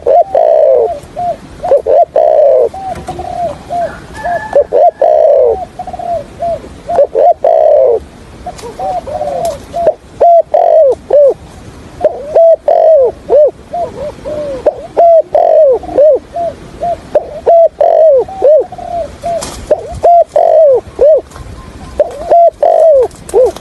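Spotted dove cooing: a rapid, continuous series of low, falling coo notes, used as a decoy call to lure wild doves.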